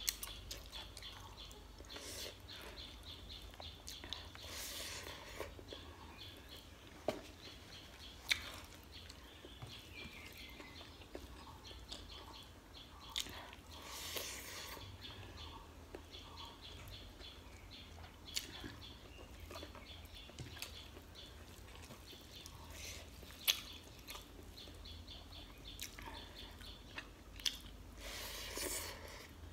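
Close-miked eating sounds of rice and chicken curry eaten by hand: chewing, lip smacks and wet mouth clicks scattered throughout. Faint bird chirping runs in the background.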